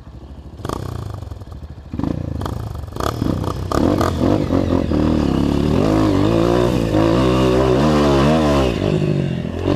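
Honda CRF 230 dirt bike's single-cylinder four-stroke engine opened up in steps and revving hard as it climbs a steep slope, its pitch rising and wavering near the end. A few sharp knocks in the first few seconds.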